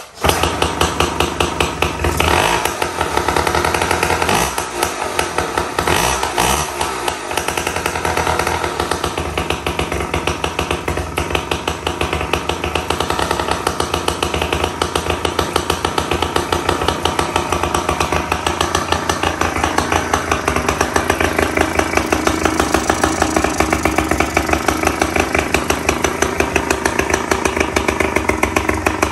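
1980s 3 hp Gamefisher two-stroke outboard starting at once and running out of the water on a stand, with a rapid, even firing rhythm. It is revved up and down a few times in the first several seconds, then settles into a steady fast run.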